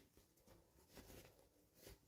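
Faint, scattered rustling and scratching from toy packaging being handled and opened.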